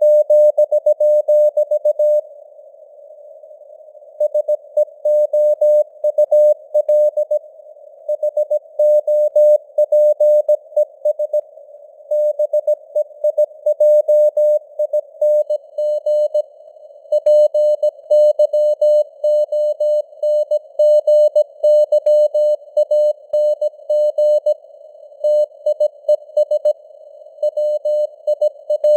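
Morse code (CW) at 17 words per minute: a single tone of about 600 Hz keyed on and off in dots and dashes, over a narrow band of simulated radio hiss like a receiver's CW filter. Two longer pauses fall between words, one about two seconds in and one about sixteen seconds in.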